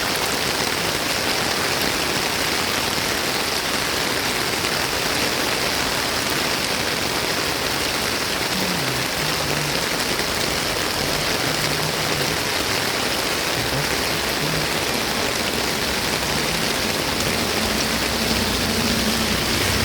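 Steady heavy rain falling, a constant even hiss. A faint low engine hum comes in after about eight seconds and grows a little louder near the end.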